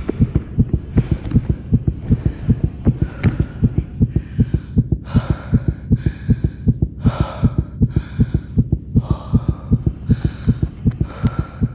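A fast, steady heartbeat thumping, with quick, heavy breaths about once a second coming in about four seconds in, like an athlete's breathing during exertion.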